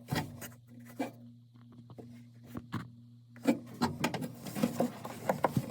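Scattered light clicks and knocks, busier in the second half, over a faint steady low hum: hands and tools handling parts during a washing-machine shock absorber repair.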